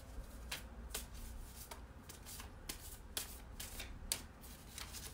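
Tarot cards being shuffled by hand: a string of faint, irregular clicks as the cards slap together.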